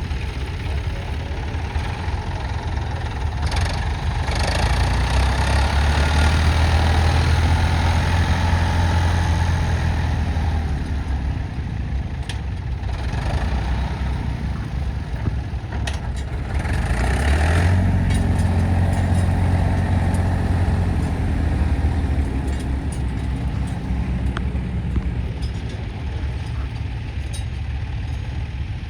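Tractor engines running at a ploughing match, a steady low hum that grows louder twice for several seconds at a time.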